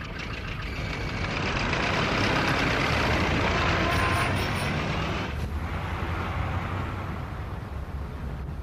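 Street traffic noise: motor cars running and passing, a steady rumble that is loudest in the middle and eases off a little after about five seconds.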